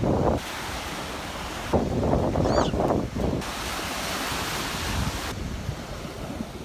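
Surf breaking and washing up on a sandy beach, with wind buffeting the microphone.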